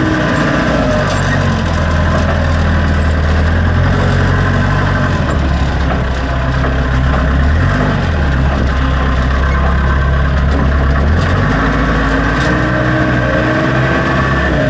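Backhoe loader's diesel engine running while the front-end loader is worked, its note dropping and picking up again several times. A higher whine falls about a second in and climbs again near the end.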